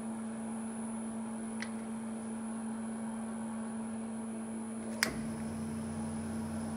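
Eillert G4400 belt slicer humming steadily, then a sharp click about five seconds in as the start selector switch on its control panel is turned, after which a second, lower motor hum comes in as a drive starts up.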